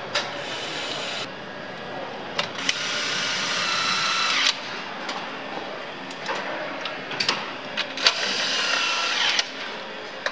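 Handheld power nutrunner running in two bursts of about two seconds each, a steady whine that cuts off sharply as each fastener is driven home, over a constant hum of factory noise with scattered metallic clicks.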